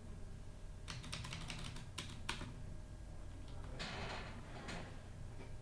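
Keys being pressed: a quick run of sharp clicks about a second in, then a soft hiss near the end.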